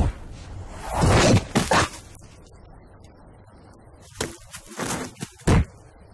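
Cartoon slapstick sound effects: a loud crashing burst about a second in, then a few short, sharp knocks near the end.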